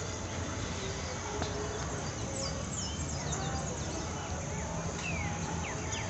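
Many birds chirping in short, sharp calls, thickening from about two seconds in, over a steady low background noise.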